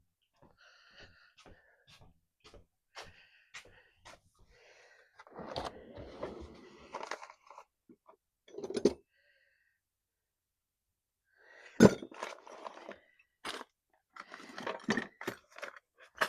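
Rummaging through a toolbox for an Allen wrench: metal tools clinking and rattling, with a few sharp knocks and two louder clunks about nine and twelve seconds in.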